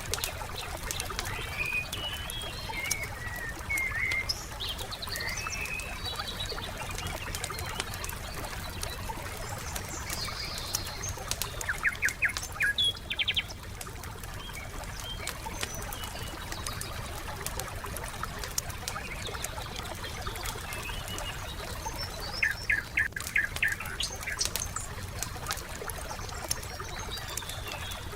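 Wood fire crackling with frequent small pops, with birds chirping and calling over it. Twice a bird gives a short, fast run of repeated notes.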